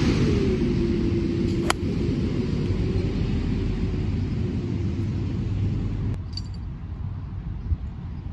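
A golf iron strikes a ball once, a sharp crack about a second and a half in, over a steady rumble with a low hum that stops abruptly about six seconds in.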